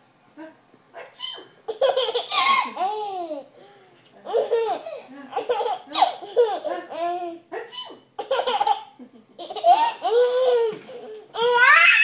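Baby laughing hard in several bursts of high-pitched giggles with short pauses between them, rising to a loud squeal near the end.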